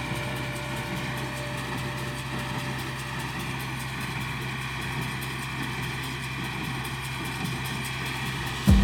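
John Deere 2510 tractor engine running at a steady speed.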